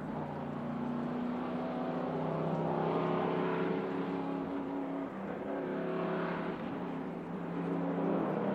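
1963 Ford Galaxie 500 race car's 427 V8 heard at a distance as it climbs the pass, its engine note rising in pitch under acceleration and stepping down at gear changes about five seconds in and near the end.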